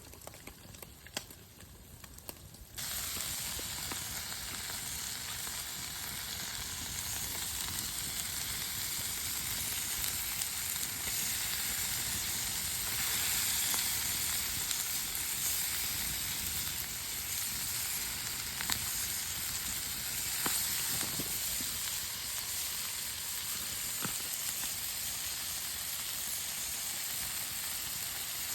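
Food sizzling in a hot pan over a campfire: a steady frying hiss that starts suddenly about three seconds in, after a few light clicks.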